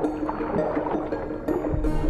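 Background music with steady held notes, over a busy patter of water splashing.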